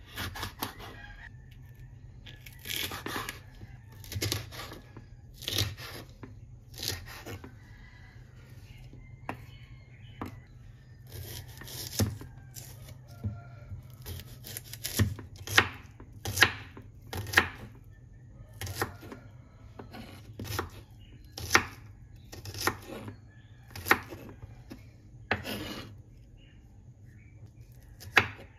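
Chef's knife chopping red chili pepper and then red onion on a thick round wooden chopping board: sharp knocks of the blade on the wood, irregular, about one a second and a little quicker after the first third, over a low steady hum.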